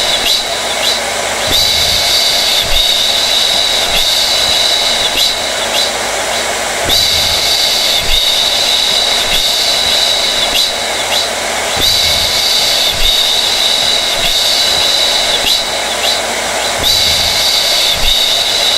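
Hair dryer running steadily: a continuous rush of air with a high whine that brightens and eases about every five seconds.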